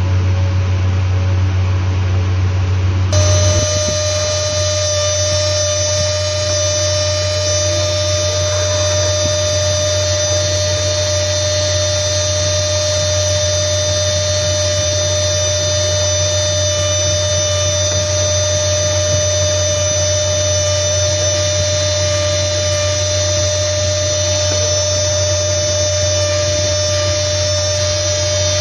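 Jeweller's handheld rotary tool (micromotor handpiece with a small bur) running steadily on a gold bangle: a continuous whine of several steady tones over a low hum, its pitch pattern changing about three seconds in.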